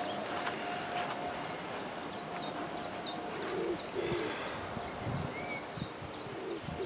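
Birdsong: a small bird's quick run of short high notes, about three a second, with a few low cooing calls from a pigeon-like bird in the second half.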